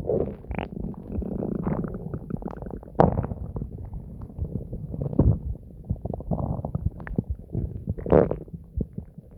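Distorted human stomach gurgling and rumbling: irregular digestion noises with uneven squelches. There is a sharp pop about 3 seconds in and a higher gurgle near the end.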